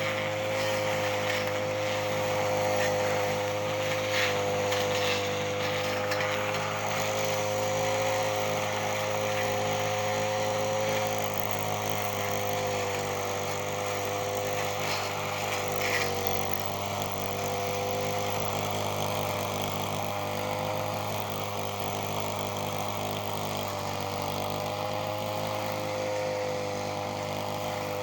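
Echo 240 brush cutter's small two-stroke engine running steadily at speed, its high tone wavering slightly, with a few brief ticks.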